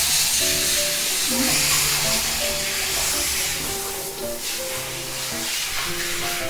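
Water hissing from a handheld shower head as it sprays onto a cat's wet fur in a bathtub. The spray thins briefly about four seconds in. Light background music with a melody of short held notes plays over it.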